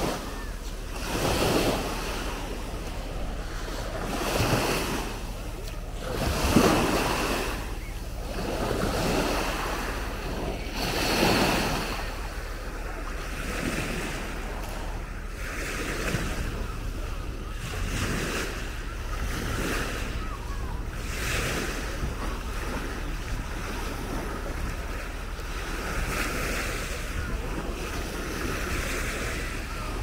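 Small Baltic Sea waves washing onto a sandy shore, swelling and fading every two to three seconds in the first half, then a steadier wash, with wind buffeting the microphone.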